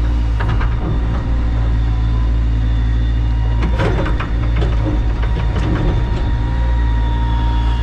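CAT 320 GC excavator's diesel engine running steadily with a faint hydraulic whine. A short burst of scraping and clatter comes about four seconds in, as the bucket works through rocky dirt.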